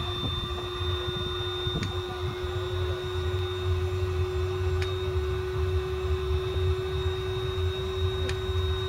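Steady electrical-sounding hum: one constant mid-pitched tone with a fainter high whine above it, over an uneven low rumble, with a few faint clicks.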